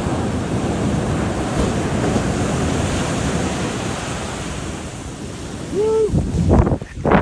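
Heavy surf crashing, with wind buffeting the microphone. About six seconds in there is a brief pitched call, and near the end two loud sudden blasts of noise.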